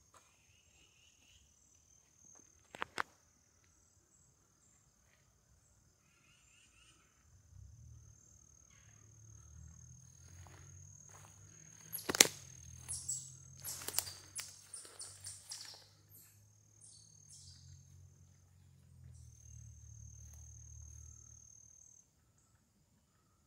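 Woodland ambience: an insect trill holds one high, steady note throughout, with a few short bird chirps near the start. A sharp click comes about three seconds in, and a cluster of loud clicks and crackles about halfway through, over a low rumble that lasts most of the second half.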